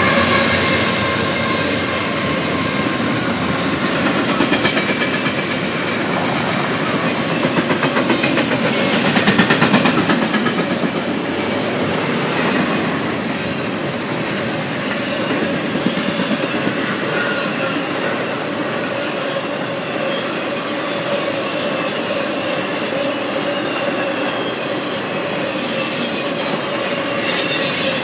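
Double-stack intermodal well cars of a freight train rolling past close by: a steady rumble of steel wheels on rail, with clicks over the rail joints and a thin high wheel squeal near the end.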